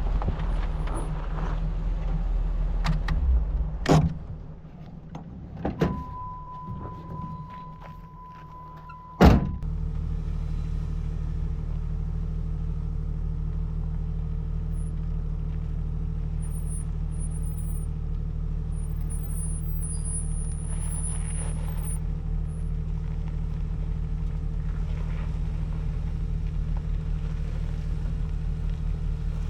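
Jeep engine running, broken by a couple of clunks and a steady electronic beep lasting about three seconds. The beep is cut off by a sharp, loud thunk, after which the engine runs on steadily.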